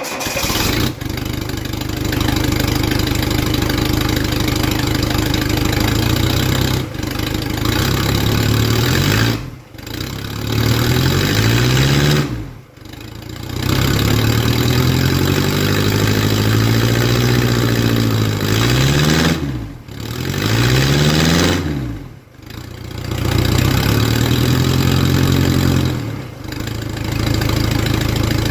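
Mercedes OM616 four-cylinder diesel running straight-piped with no muffler, starting up and then revved up and down several times. It sounds like an angry Briggs & Stratton.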